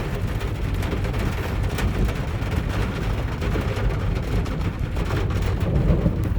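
Rain and hail falling on a car, a steady patter over a heavy low rumble, with scattered sharp hits of hailstones on the bodywork.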